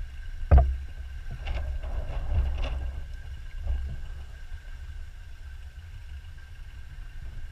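Steady low rumble of outdoor noise on a handheld camera's microphone, with a few knocks, the loudest about half a second in, and a faint steady high whine.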